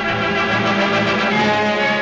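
Orchestral music with brass, full and sustained over a pulsing low note.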